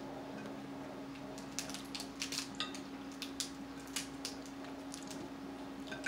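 Cooked snow crab and shrimp shells being cracked and peeled by hand: a scatter of sharp clicks and crackles, busiest in the middle few seconds, over a steady low hum.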